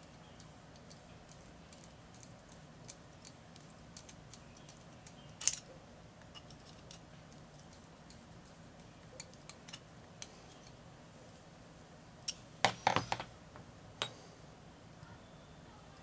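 Light clicking and ticking of small RC car drivetrain parts being handled and turned by hand, with a sharper click about five and a half seconds in. A brief clatter of several knocks around thirteen seconds in, like a small screwdriver being put down on the work mat.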